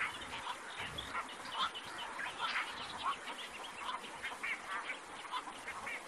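Black-crowned night herons calling together, many short overlapping calls several a second.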